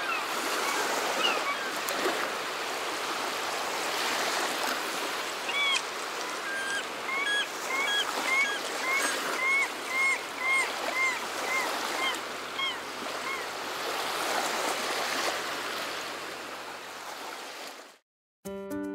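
Ocean surf washing steadily onto a beach. Through the middle a bird gives a run of short chirping calls, about two a second. The surf fades out near the end and music begins.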